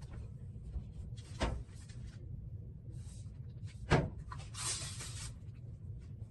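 Plastic laundry-product bottles knocked and set down on a wire shelf and the washer top, with two sharp knocks, the louder about four seconds in, followed by a brief scraping shuffle.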